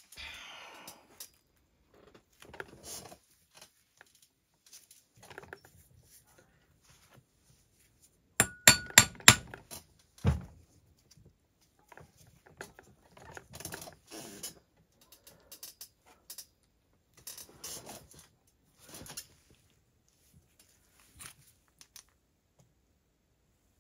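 Metal clinks and knocks from a crankcase splitter being repositioned and its T-handle screw turned on a Husqvarna 395 XP chainsaw crankcase. About eight and a half seconds in comes a quick run of five sharp, ringing metal clicks, then a heavier knock a second later.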